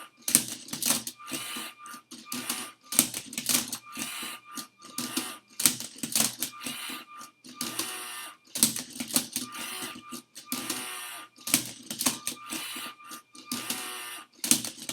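LEGO Spike Prime Rubik's Cube solver at work: its motors whir in short spells as it turns the cube's tray and tips the cube over, with the plastic cube and parts clacking in a busy, irregular run.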